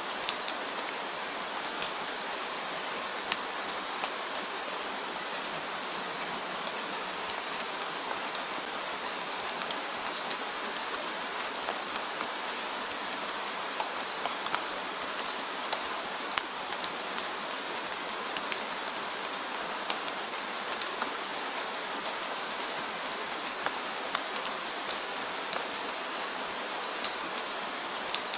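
Steady rain falling, an even hiss with many individual drops ticking sharply on a nearby surface.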